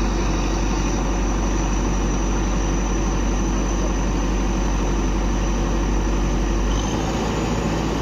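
Backhoe loader's diesel engine running steadily with a low rumble, which drops abruptly near the end.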